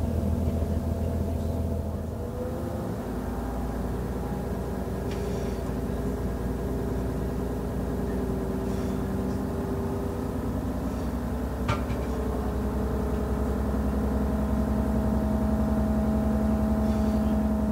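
DB class 628.4 diesel railcar heard from aboard, its MTU 12V183TD13 V12 diesel engine running under way. The engine note shifts lower a couple of seconds in and slowly climbs toward the end, with a single sharp click about twelve seconds in.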